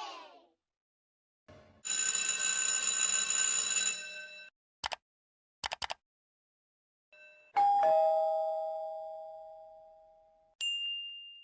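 Two-note doorbell chime, ding-dong: a higher note then a lower one, ringing out and fading over about three seconds. Before it come a couple of seconds of steady ringing and a few short clicks, and a brief high beep follows near the end.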